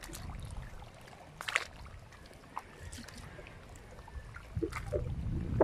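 Shallow seawater lapping among rocks at the shore, over a low rumble, with a few sharp clicks; the loudest clicks come as a pair about a second and a half in.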